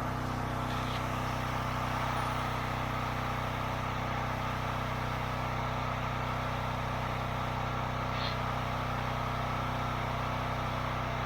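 Gas engine of a Predator commercial-duty pressure washer running steadily at working speed, with the hiss of the water spray over it.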